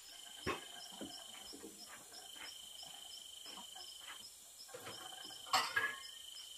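Insects trilling at one high pitch in bouts of a couple of seconds, over a steady faster chirping. A few sharp knocks, the loudest about five and a half seconds in.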